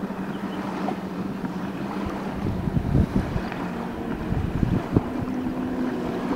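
Wind buffeting the microphone, with heavier gusts about three and five seconds in, over a steady low hum.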